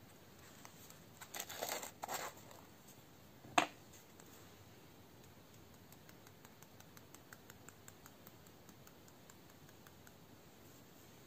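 Glitter shaker bottle handled over a plastic disc: a brief scraping rustle, then a single sharp click, then a long run of faint, light ticks as green glitter is tapped out onto the plastic.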